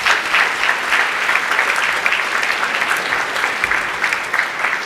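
Audience applauding, dense steady clapping that eases off a little near the end.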